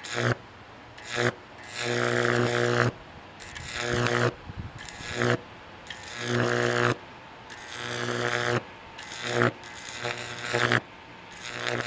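High-voltage arcs from a microwave oven transformer's secondary, struck again and again between an electrode and a perforated metal strip, with the current limited by a tap-water ballast resistor in series. There are about ten buzzing bursts, some brief and some about a second long, each with a steady hum.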